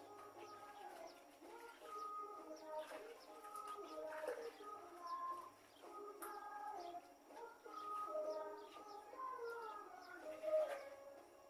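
Birds calling and chirping, several overlapping calls throughout.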